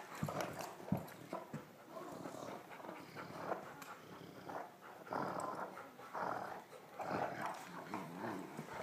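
An adult Great Dane and a Great Dane puppy growling in play as they tug and shake a rope toy, with irregular scuffling and a couple of thumps about a second in.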